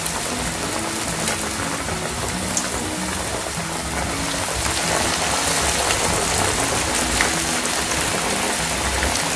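Crumb-coated chicken wings deep-frying in boiling oil in a wok: a steady, dense crackling sizzle that grows a little louder after about four seconds as another wing goes into the oil. Soft background music plays underneath.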